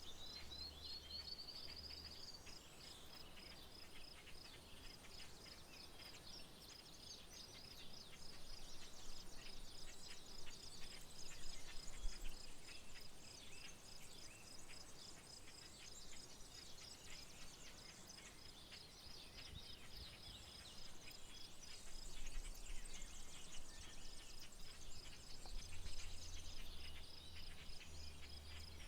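Insect trilling steadily in a fast, even pulse, with a short run of rising bird notes near the start and scattered faint chirps. A low rumble comes and goes near the start and end.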